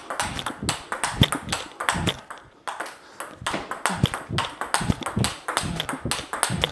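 Table tennis rally: the celluloid ball clicking off rackets and the table in quick, irregular succession, with a short pause a few seconds in.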